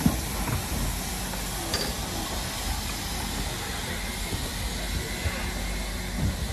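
BR Standard Class 9F 2-10-0 steam locomotive pulling slowly away, with a steady hiss of steam escaping around its cylinders. There is a low thump at the start and another near the end.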